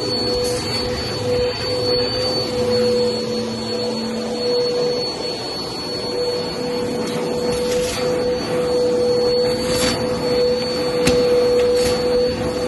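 Vacuum cleaner running steadily on carpet, with a constant motor whine and a few brief sharp clicks along the way.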